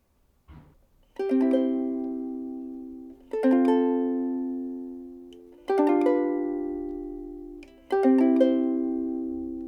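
Frayns FRUK-5MS soprano ukulele, solid Honduras mahogany body, strummed slowly: four chords about two seconds apart, each left to ring and fade. A faint brush of the strings or hand comes just before the first chord.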